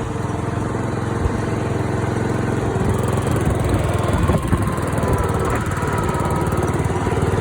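Engine of a rebuilt 36-year-old riding lawn mower running steadily while the mower is driven, with a few faint knocks about halfway through.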